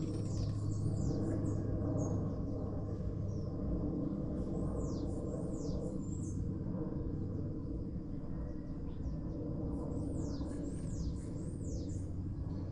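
Steady low buzz of a bumblebee's wings, fainter in the middle and stronger again near the end. Over it, a songbird gives short runs of three or four quick, high, falling whistled notes, three times.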